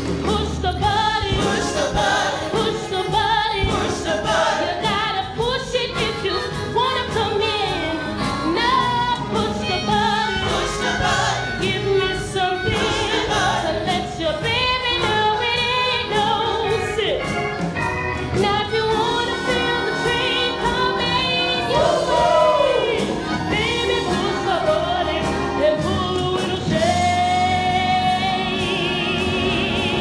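Live stage musical number: a woman's lead vocal with ensemble singing over a band with a steady beat, ending in a long held note near the end.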